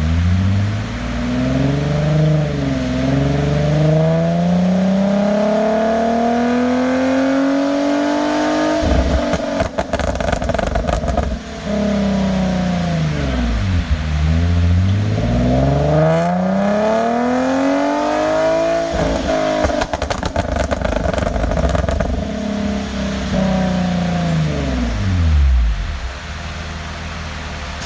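2009 Infiniti G37's 3.7-litre V6 with test pipes and a cat-back exhaust, revving up and down several times. When the revs drop it pops and crackles in rapid bursts, three times.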